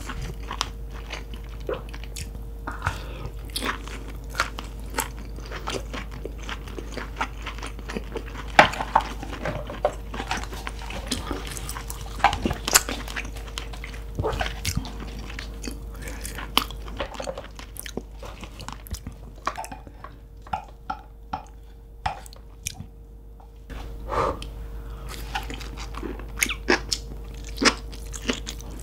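Close-miked chewing and biting of steamed lobster meat: wet, sticky mouth sounds with many sharp clicks, quieter for a few seconds past the middle. A faint steady hum runs underneath.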